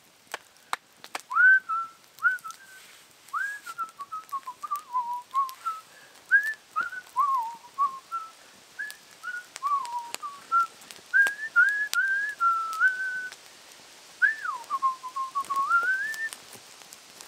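A man whistling a wandering tune of sliding notes, pausing briefly about three-quarters of the way through, over the crackle of a small campfire.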